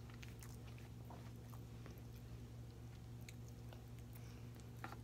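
Faint chewing, heard as a few scattered soft mouth clicks, over a steady low electrical hum.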